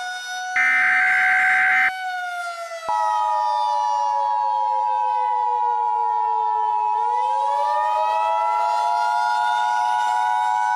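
Emergency Alert System audio. The last SAME header data burst, a harsh buzzing screech, ends about two seconds in. About a second later the EAS two-tone attention signal starts and holds steady to the end. Under it all a civil defense siren slowly wails down in pitch and back up again.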